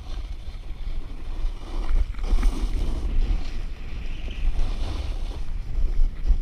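Snowboard scraping and hissing as it carves down groomed snow, swelling with each turn, under heavy wind rumble on a GoPro microphone.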